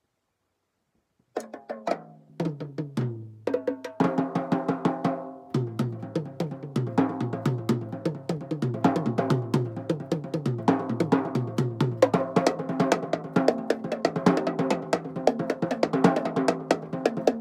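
Drum kit played solo, starting about a second in with a run of single tom strokes that step down in pitch, then fast, continuous playing across the toms and snare.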